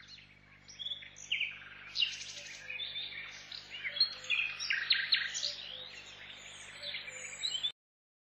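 Several songbirds chirping and calling at once, many quick overlapping notes and short pitch glides, over a faint steady low hum. The sound cuts off abruptly near the end.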